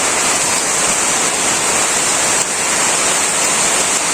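Heavy monsoon downpour: dense, steady rain making a loud, even hiss.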